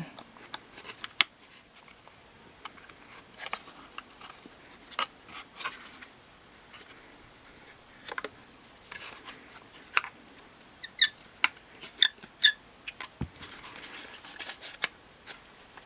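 Plastic parts of an LG front-load washer's drain pump assembly being worked loose by hand: scattered clicks and taps, with a few short squeaks about eleven seconds in and a dull knock just after.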